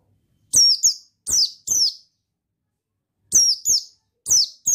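White-eye (pleci) calling: about eight short, high chirps, each slurring downward, in two quick clusters about a second and a half apart.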